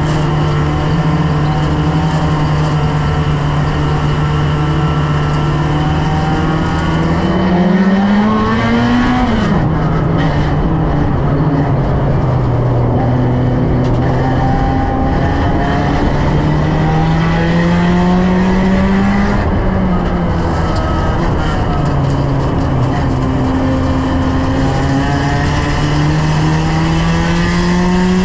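A one-litre stock car's engine at racing speed, heard from inside the cabin: the pitch climbs along each straight and drops sharply as the driver lifts for the turn, twice, then climbs again near the end. Tyre and road noise run steadily underneath.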